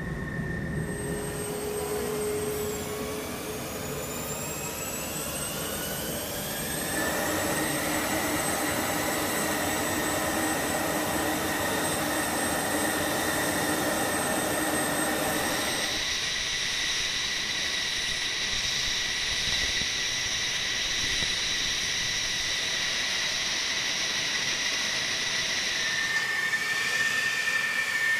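F-16 fighter jet engines whining on the ramp: several tones climb in pitch over the first few seconds as an engine spools up, then settle into a steady high whine over a rushing noise. The tone pattern changes abruptly about halfway through and again near the end.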